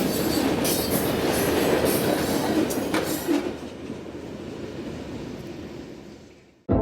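Freight train cars rolling past, their wheels clacking over the rail joints, the sound dying away after about three seconds. Music starts right at the end.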